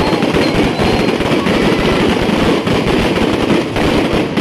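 Fireworks going off close by: a fountain shooting crackling stars that burst in a dense, rapid, unbroken string of pops and crackles.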